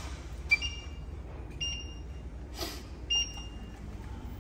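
Induction cooktop touch controls beeping as the hob is switched on: three short electronic beeps, with a brief knock between the second and third.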